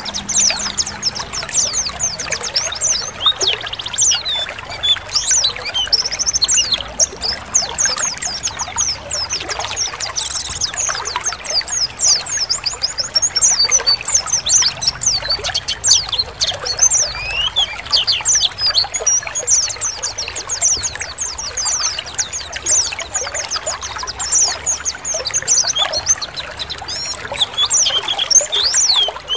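Many white-eyes (pleci) chirping and twittering together in quick, overlapping high calls, over a steady sound of trickling, pouring water.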